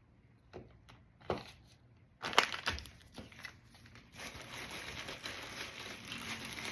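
A couple of light knocks of items being handled, then packing wrap crinkling as an item is unwrapped, starting about two seconds in and running on.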